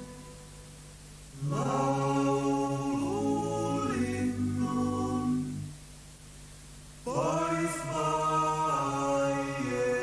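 Unaccompanied vocal music used as the show's soundtrack: voices sing two long phrases with sliding, scooping pitches, one starting about a second and a half in and another about seven seconds in, with softer held notes between them.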